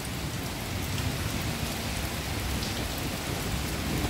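Steady rain falling on leaves and a wet paved yard.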